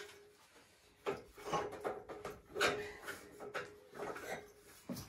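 Work boots stepping down the rungs of an aluminium extension ladder: a series of uneven knocks and scuffs, starting about a second in.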